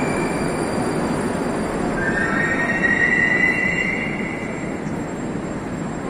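Moscow Metro train running along the station platform, its wheels and running gear making a loud rumble. A high squeal rises slightly from about two seconds in and dies away, then the noise eases off.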